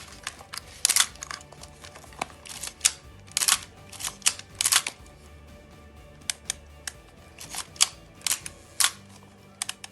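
Nikon FM10 film SLR being worked by hand: a series of sharp mechanical clicks from its shutter release and film-advance lever, in two runs with a pause about halfway.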